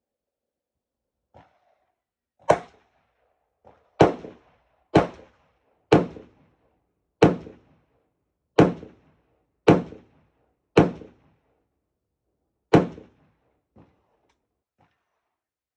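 Nine gunshots from a firearm fired at a range, about one a second with a longer pause before the last, each with a short echo. A few faint clicks come before the first shot and after the last.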